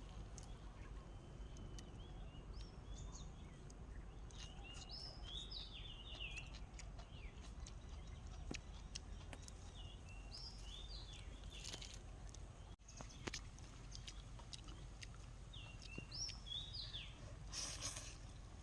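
Birds chirping outdoors in short, repeated song phrases about four times, over a steady low background rumble, with a few sharp clicks near the end.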